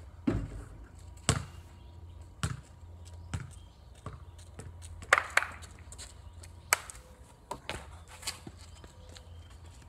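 A basketball hitting a portable hoop's rim and backboard, then bouncing on a wet concrete driveway: a string of sharp knocks about a second apart, with a quick pair about five seconds in.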